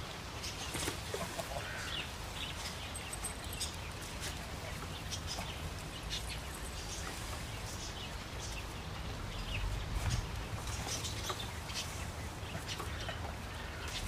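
Birds chirping on and off, short high calls scattered throughout, over a steady low rumble.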